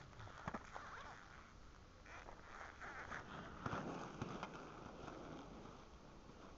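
Inline skates rolling and striding on rough asphalt, faint, growing louder as the skater passes close by about four seconds in, then fading as the skater moves away.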